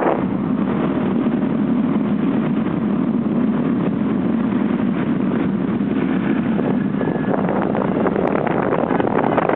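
Small motorbike engine running steadily under way, with a constant rush of air and road noise.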